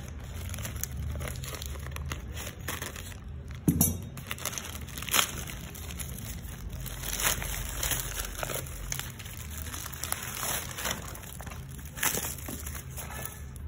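Plastic courier bag and paper packing crinkling and rustling as the package is opened and the boxed phone is pulled out, with a few louder sharp crackles, the first about four seconds in.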